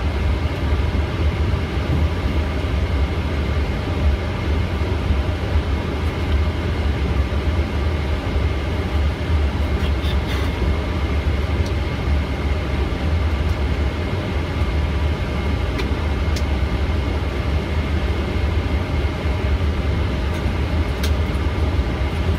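Steady noise of a Boeing 777 taxiing, heard from the flight deck: an even low rumble with a faint, steady high whine, and a few faint clicks.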